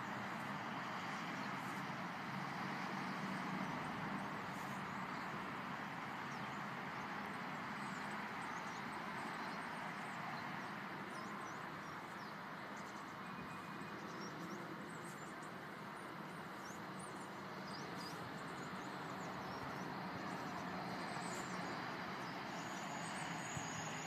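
Steady hum of distant road traffic, with faint high chirps in the second half.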